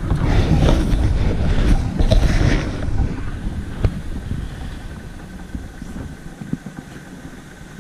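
Wind buffeting the microphone on an open boat, a low rumble that is strongest for the first three seconds and then eases off, with a few sharp clicks of handling.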